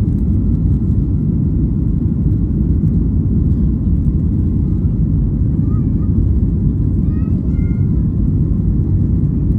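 Steady, loud low rumble inside the cabin of a Boeing 737-8200 airliner, the noise of its jet engines and the air rushing past the fuselage.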